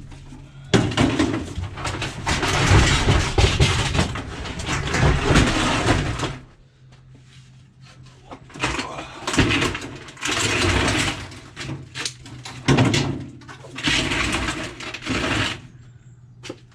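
Scrap metal being handled and thrown onto piles: three long stretches of clattering and rustling with many knocks, the first lasting about five seconds, the others a few seconds each.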